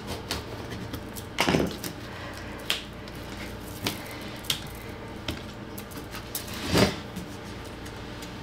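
A razor knife cutting and trimming the curled edge of old sheet vinyl flooring along a metal square. Scattered small clicks and taps come from the blade and square on the floor, with two louder strokes, one about a second and a half in and one near the end.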